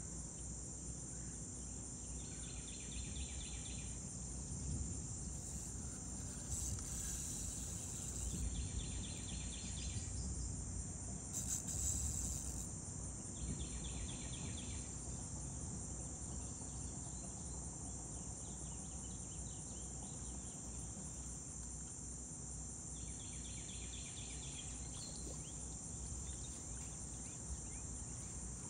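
Steady high-pitched buzzing of insects, with short pulsing trills that repeat every few seconds, over a constant low rumble. Two brief louder rushes of noise come about a quarter and about two fifths of the way in.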